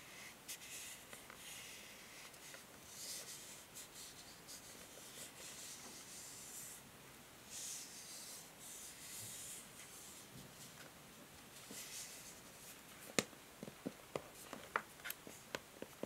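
Long fingernails scratching and rubbing the smooth grey back of a hair brush in slow strokes, a soft hissing scrape. In the last few seconds this gives way to a run of sharp taps and clicks, the loudest about thirteen seconds in.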